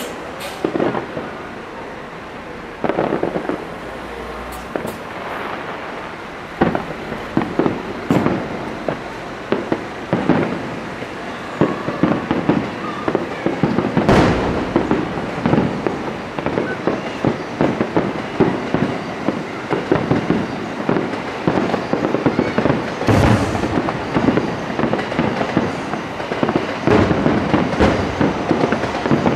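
Aerial fireworks shells bursting in irregular succession, booms mixed with thick crackling that gets denser from about halfway on. Two especially sharp bangs stand out, about halfway through and about two-thirds through.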